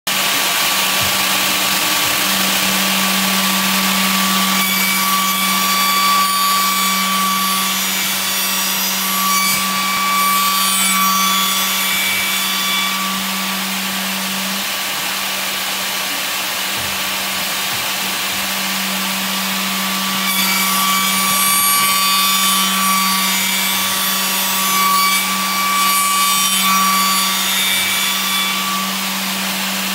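Automatic wood copy shaper milling machine running, its cutter spindle giving a steady hum. A higher whine with a rasping cutting noise comes in twice for several seconds, about five and twenty seconds in, as the cutter shapes bamboo brush blanks.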